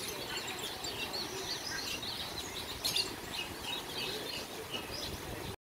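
Birds chirping: a steady stream of short, overlapping high calls, with one brief sharp click about three seconds in.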